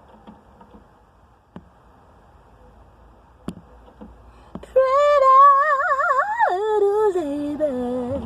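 A voice singing a wavering melody about five seconds in, loud, with a quivering pitch that steps down lower toward the end. Faint clicks come before it.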